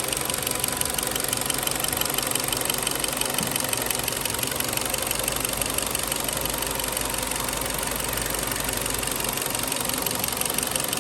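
A freshly overhauled Kia Cerato petrol engine idling steadily and evenly, running very softly and smoothly with no knock standing out.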